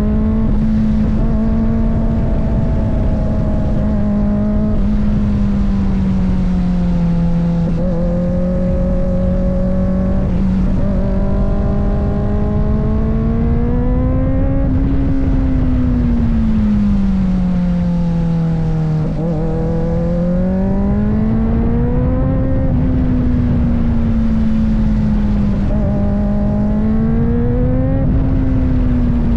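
Kawasaki ZX-4RR's 399 cc inline-four engine running at steady mid revs while riding, its pitch swelling and easing gently with the throttle, highest about halfway through and lowest a few seconds later. Constant wind and road rush lies under it.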